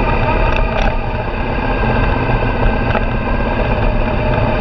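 Suzuki V-Strom 650XT's V-twin engine running steadily while the bike rides a dirt track, under rushing road and wind noise. A couple of brief ticks come about a second in.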